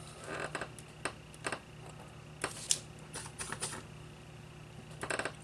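Light, irregular clicks and taps from small hand tools working tiny parts on a workbench, in small clusters of a few ticks each, with the sharpest ones about two and a half seconds in.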